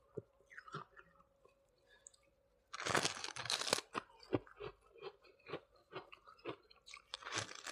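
Someone bites into and chews freezer frost close to the microphone. A loud crunchy bite comes about three seconds in, then even chewing at about two strokes a second, and another crunch near the end.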